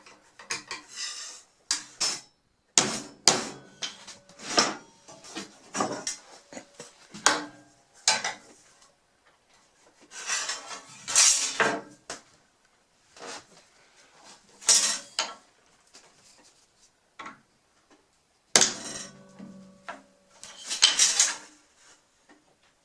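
Metal tools clinking, clanking and scraping against the cast-iron table saw top and wings in scattered bursts, some strikes ringing briefly.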